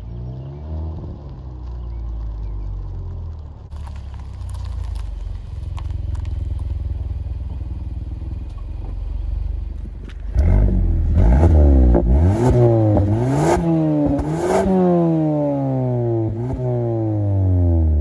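Mazda 6 with an aftermarket cat-back exhaust accelerating hard, engine pitch climbing and then holding. About ten seconds in the exhaust is heard close up, revved in several quick blips, then the revs fall slowly back toward idle.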